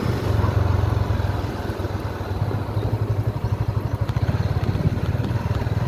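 Honda CB300F Twister's single-cylinder engine running at low revs as the motorcycle is ridden slowly through a turn, its exhaust beating in a steady low pulse.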